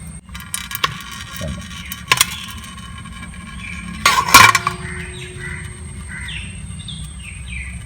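Spanner working a nut on the Royal Enfield Bullet's crankcase: scattered metallic clinks, then a loud ringing clank about four seconds in.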